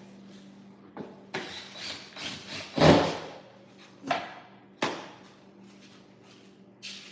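Knocks, clunks and rubbing of foosball table parts and hardware being handled during assembly, with a heavy clunk about three seconds in as the loudest and a few single knocks after it.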